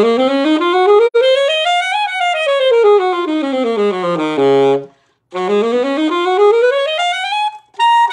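Saxophone playing fast, connected major scales: a B flat major scale running up into the upper register and back down to a held low note. After a short breath it climbs the next scale in the circle of fifths to a high note and starts down again.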